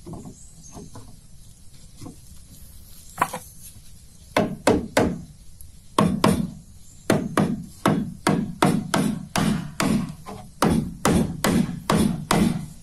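Hammer striking wood in a steady run of sharp blows, about three a second in short groups, beginning about four seconds in after a few scattered knocks.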